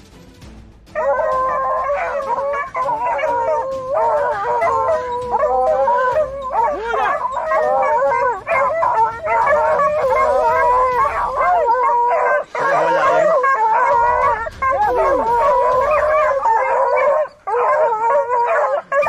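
American Foxhounds baying with long, drawn-out howls, several voices overlapping, as hunting hounds in full cry. The baying starts about a second in and carries on with only a few brief breaks.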